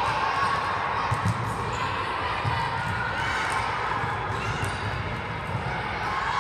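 Volleyballs being hit and bouncing on a hardwood gym floor: dull thuds at irregular intervals, echoing in a large gym over a steady background murmur.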